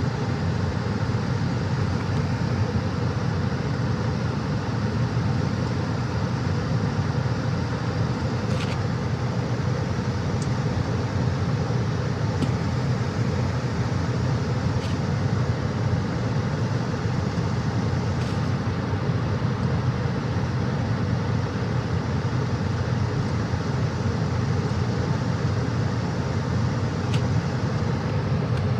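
Comfortmaker 80 gas furnace running: a steady low hum and rumble of burners and blower, with a few faint, sharp ticks.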